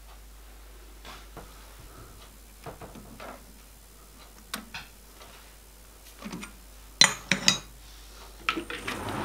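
Scattered light metallic clicks and clinks as a small steel part is handled and set into the jaws of a metal lathe's chuck, with a cluster of sharper clinks about seven seconds in.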